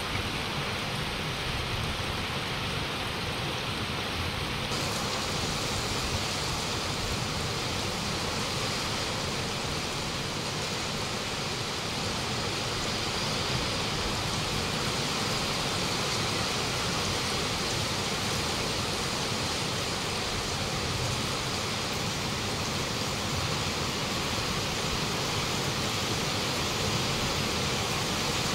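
Heavy rain falling steadily, an even hiss without letup.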